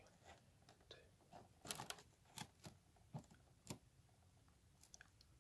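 Faint, scattered scratches and ticks of fingers working on a cardboard figure box and picking tape off it, a few grouped about two seconds in.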